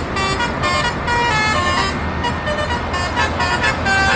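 Bus horn playing a fast tune of short tooting notes in the Indonesian 'telolet' style, over a steady low engine and traffic rumble.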